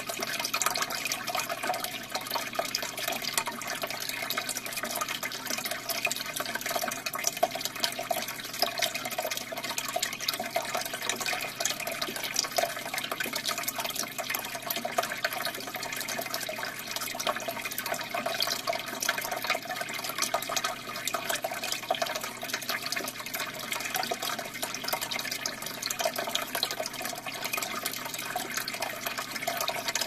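Steady aquarium bubbling and splashing: a stream of air bubbles from an air stone rising and breaking at the water surface, a dense run of tiny irregular pops over running water.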